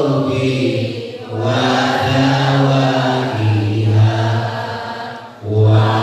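A man chanting a sholawat, a blessing on the Prophet Muhammad, into a microphone in long, drawn-out melodic phrases, with short breaths about a second in and near the end.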